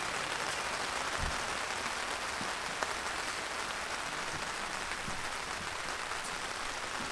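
Heavy rain falling steadily on the tent's fabric, an even hiss of many small drops.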